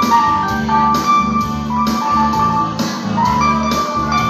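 Electronic arranger keyboard playing an instrumental melody, with held notes over a drum-and-bass accompaniment on a steady beat.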